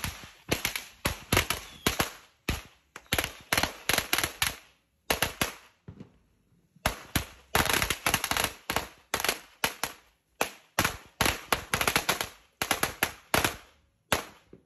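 A string of firecrackers going off on pavement: a rapid run of sharp bangs, several a second. There is a pause of about a second and a half a little before the middle, then the bangs resume.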